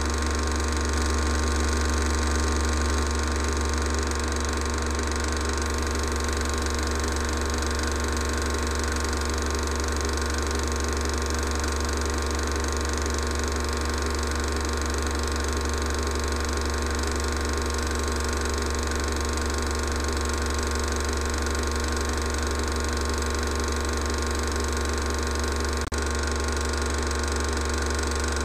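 A 16mm cine projector running: a steady mechanical whirr over a low hum, with one brief click near the end.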